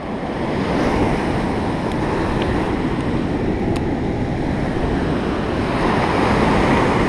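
Ocean surf breaking and washing up a sandy beach: a steady rush of waves that swells over the first second, with wind on the microphone.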